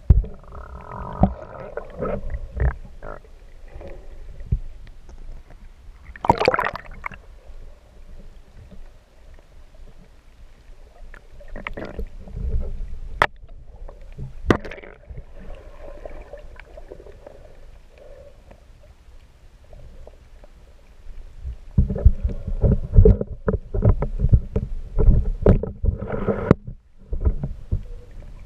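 Water sloshing and gurgling around a waterproof action camera held half in and half out of the water, with scattered sharp knocks and splashes. The sound gets busier and louder for a few seconds near the end.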